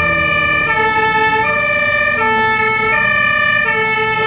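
Fire engine's two-tone siren sounding, switching steadily between a lower and a higher note about every three quarters of a second, heard from inside the vehicle over its engine rumble.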